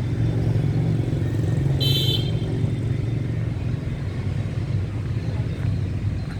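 Steady low rumble of road traffic with motorbike engines, and one short high beep about two seconds in.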